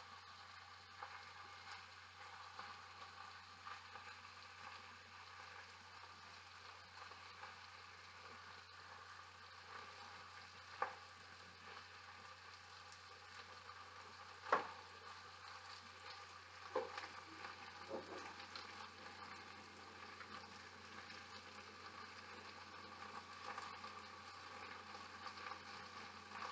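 Chicken tenderloins searing in olive oil in a frying pan over medium-high heat, a faint steady sizzle. A few sharper clicks or pops stand out about halfway through.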